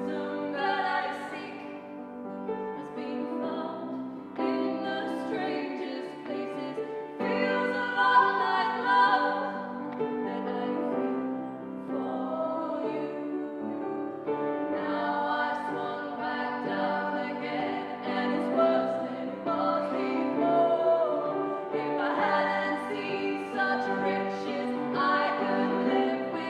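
Live music: voices singing a slow song over instrumental accompaniment, with no break.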